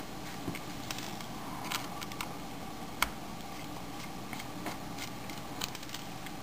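Faint, scattered clicks and ticks of a small Phillips screwdriver turning tiny screws in the case of a Creative Zen Vision W, with the sharpest click about three seconds in, over a steady low hiss.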